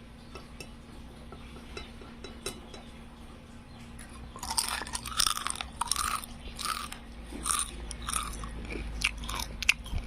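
Fried tempeh being bitten and chewed: a few faint clicks at first, then from about halfway a run of loud, crisp crunches, roughly one or two a second.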